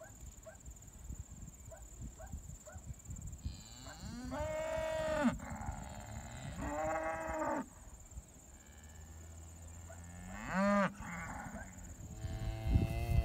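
Red Devon cattle mooing: two long moos about four and six and a half seconds in, then a shorter one near ten and a half seconds.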